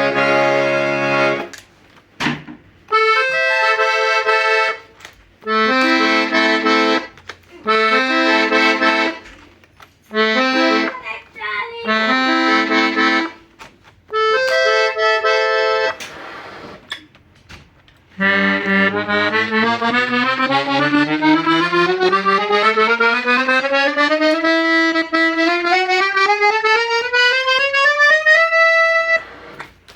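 Hohner Concerto III piano accordion playing held chords in short separate bursts, then a long run of notes in parallel climbing steadily in pitch that cuts off near the end.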